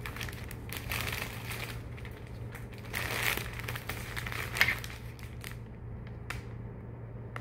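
Crinkly bouquet wrapping being handled, in irregular rustles and crackles over a steady low hum, with a louder rustle about three seconds in.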